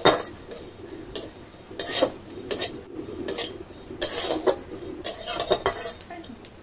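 Metal spatula scraping and stirring cumin seeds around a dry metal kadai in a series of irregular strokes, as the seeds are dry-roasted without oil.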